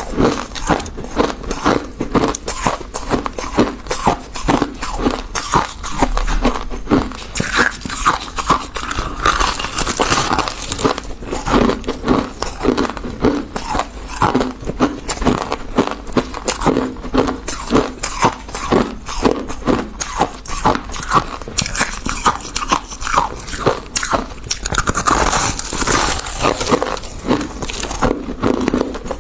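Refrozen freezer frost being bitten and chewed: a steady run of crisp crunches, about two or three a second.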